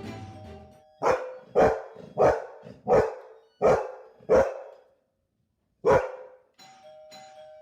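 A dog barking: six loud barks about two-thirds of a second apart, a pause, then one more bark. Near the end a steady two-note ringing tone starts up.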